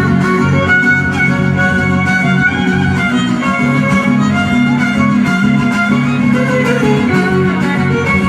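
Instrumental string music: a violin playing a melody over guitar accompaniment, at a steady level.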